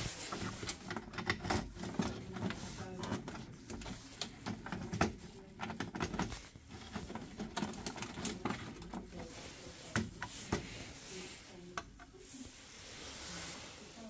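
Wiring looms and plastic plug connectors on a boiler's circuit board being handled and pushed into place: scattered sharp clicks and knocks with rustling of the wires.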